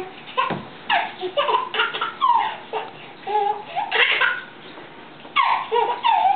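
A baby laughing in short bursts.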